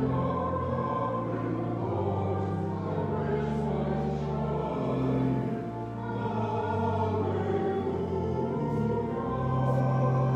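A small group of voices singing a hymn with organ accompaniment. The organ's long-held low notes sound under the singing.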